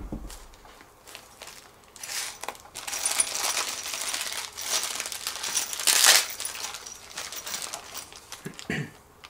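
Plastic wrap and a small plastic bag crinkling as they are peeled off and handled, with the metal bolts inside the bag clinking. A single thump comes at the very start.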